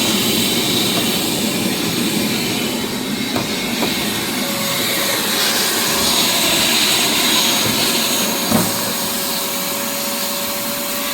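Shop vac running steadily, its nozzle sucking at wet leaves and mud in the condenser coil compartment, with a few short knocks. The vacuum is not doing a good job of picking up the wet debris.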